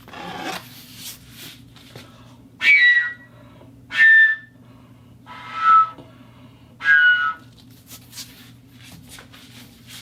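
Conduit pipe giving four short, loud whistle-like tones about a second apart, each slightly falling in pitch, over a steady low hum.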